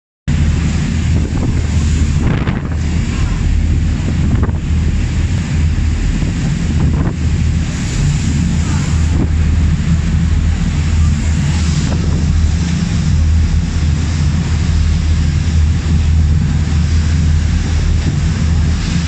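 Inter-island passenger ferry under way: a steady low engine drone under the rushing, churning water of its wake, with strong wind buffeting the microphone.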